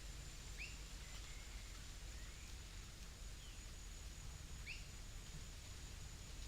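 Faint outdoor countryside ambience: a bird gives a few short rising chirps, two of them clearer, about half a second in and near the end. A steady high thin whine and a low rumble run underneath.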